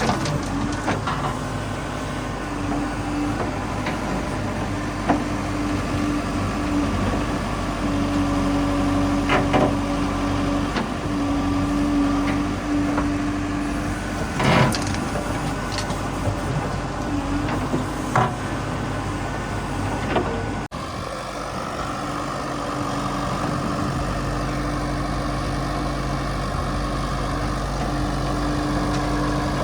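Heavy diesel machine engine running steadily, with a few sharp clanks. About two-thirds of the way through, the sound breaks off abruptly and another steady engine hum carries on.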